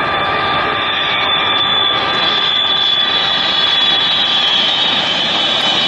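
Delta Boeing 777's twin jet engines running close by as it comes in low over the runway to land: a steady rush with a high whine that sags slightly in pitch.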